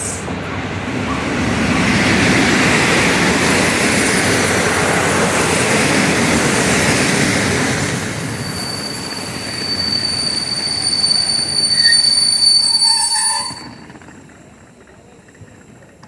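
Passenger train pulling into a station platform: a steady rumble of wheels on the rails, then a high, steady brake squeal from about eight seconds in that stops abruptly as the train comes to a halt.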